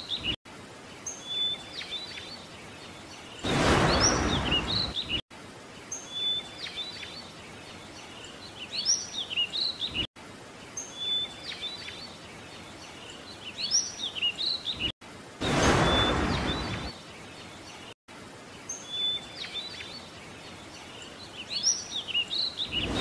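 Birdsong ambience: the same short run of chirps comes round again about every five seconds. Three times, a rush of noise lasting a second or two rises over it and is the loudest thing heard.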